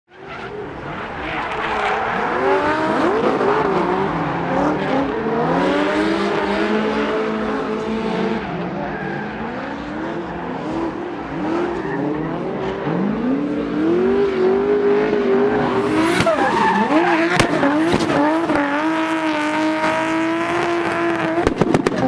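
Nissan Skyline R32's RB26 twin-turbo straight-six revving hard through a drift, its pitch rising and falling with the throttle over squealing tyres. There is a sharp crack at about 17 seconds, and a rapid string of exhaust pops near the end, typical of backfire off the rev limiter.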